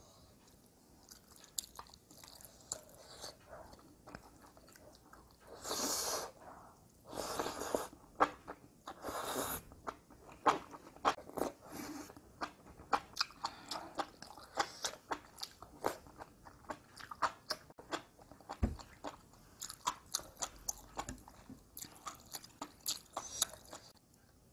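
Close-miked mouth sounds of eating spicy braised enoki mushrooms: three longer slurps about six to ten seconds in, then a long run of quick, wet crunchy chewing clicks.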